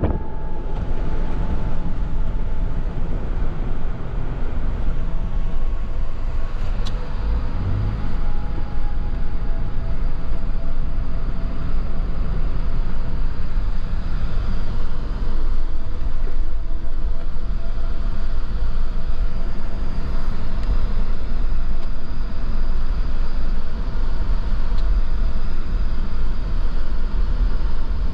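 Steady engine and road noise inside the cabin of a four-wheel-drive Jeep as it drives, a constant low rumble with a faint hum over it.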